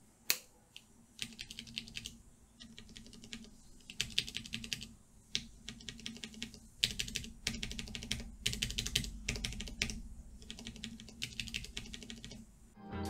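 Bare Cherry MX Brown switches on a Cooler Master MasterKeys Pro S RGB, keycaps removed, pressed by finger in short runs of clicks with pauses between. Unlubed switches are set against freshly lubed ones.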